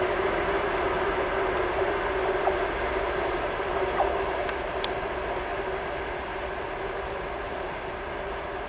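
TEP70BS diesel locomotive's V16 engine pulling hard at the head of a departing passenger train, a steady drone over the rumble of the coaches, slowly fading as the train draws away. A light click about four seconds in.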